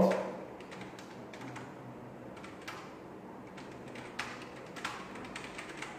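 Computer keyboard being typed on: irregular, scattered keystroke clicks.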